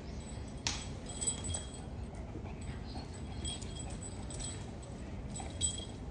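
A suction-cup rope-and-ball dog tug toy being pressed onto a stone countertop and pulled at by a small dog. Faint clicks and light jingling come a few times, loudest about a second in and again near the end.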